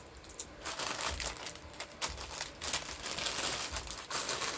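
Plastic packets of water crackers crinkling and rustling as they are handled, an irregular crackle that starts about half a second in.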